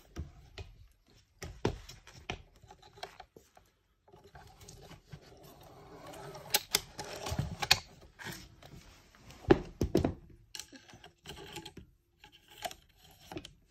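Crossbow being handled and reloaded between shots: scattered clicks, scrapes and knocks of metal and plastic parts, with a few sharper clacks, the loudest a little over halfway through, as a bolt is set on the rail.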